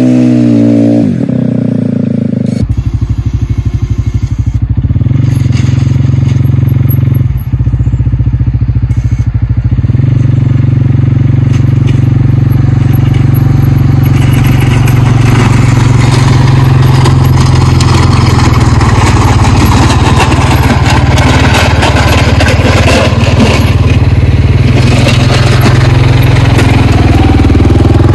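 CFMOTO CForce 450L ATV's single-cylinder engine running steadily, a loud low chug. From about halfway a scraping, crackling noise grows over it.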